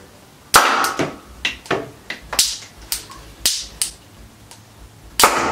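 Homemade syringe 'minigun' firing: ethyl alcohol vapour in the syringe barrels ignited by piezo lighter sparks, shooting out syringe-tip bullets as a series of sharp pops. There are about ten shots in under five seconds, the loudest about half a second in and near the end.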